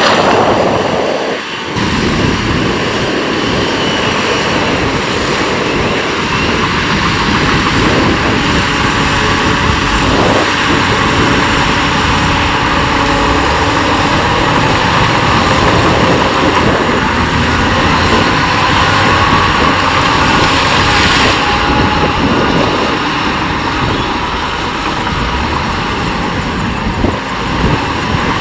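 Heavy diesel earthmoving machinery working, a bulldozer and dump trucks, in a loud, steady din. The hiss brightens briefly about two-thirds of the way through.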